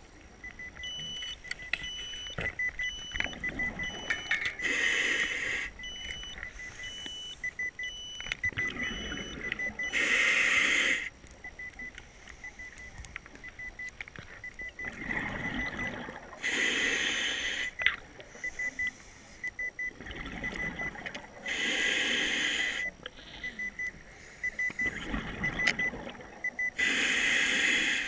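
Scuba regulator breathing underwater: a hiss on each inhale, then a louder rush of exhaust bubbles, about every five to six seconds. Throughout, a rapid run of short electronic beeps sounds, with a second, higher beep series in the first third.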